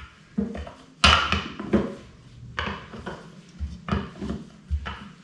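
A rolling pin working bread dough thin on a granite countertop: a low rolling rub broken by a string of sharp, irregular knocks and clatters as the pin meets the stone, about eight of them.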